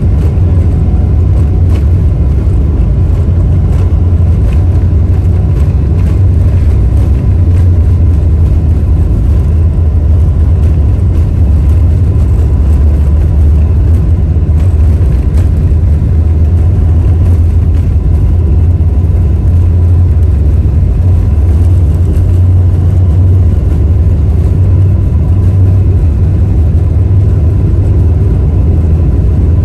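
Steady low rumble inside the cabin of a Boeing 747-8i taxiing, its four GEnx-2B engines running at low taxi power.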